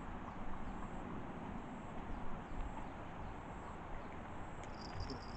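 Outdoor ambience: a steady low rumbling noise with faint, repeated high chirps, and a louder high chirping call starting near the end.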